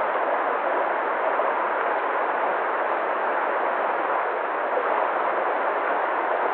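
Waterfall rushing: a steady, even wash of falling water that does not change.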